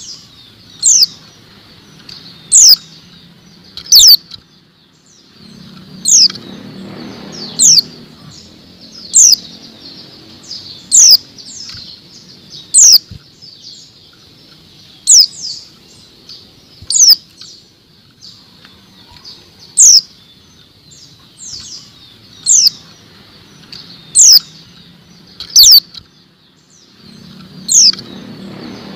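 Female white-eye (pleci) giving short, high-pitched call notes that slide quickly downward, about one every one to two seconds. These are the female calls that keepers use to rouse male pleci into song. A low rumble rises under the calls twice, a few seconds in and near the end.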